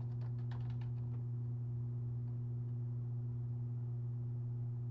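Computer keyboard typing: a quick run of keystrokes in the first second, then stopping. A steady low hum runs underneath and is the loudest thing throughout.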